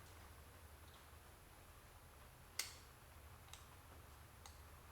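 Near silence: room tone with a low hum, broken by one sharp click about two and a half seconds in and two fainter ticks after it.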